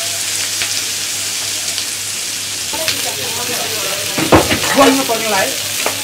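Bara patties and bone marrow balls sizzling steadily in oil on a hot flat griddle, with a louder knock or two about four seconds in.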